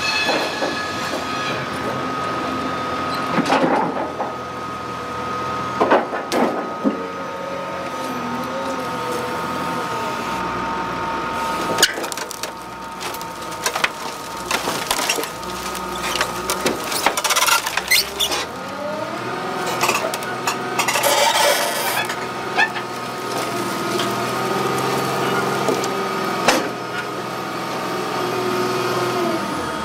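Heavy log stacker working: its diesel engine and hydraulics run with a steady whine, the pitch rising and falling as the grapple lifts a bundle of logs, with several sharp knocks and clanks of logs and steel.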